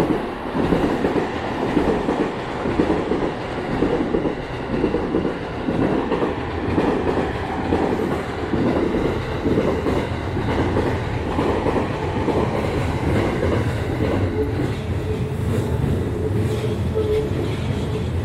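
Electric commuter trains passing close by: wheels clatter steadily over the rail joints as a Tokaido Line E231 series train runs below. About three-quarters of the way in, a deeper rumble and a steady hum join in as a Keikyu 1500 series train rolls onto the steel truss bridge.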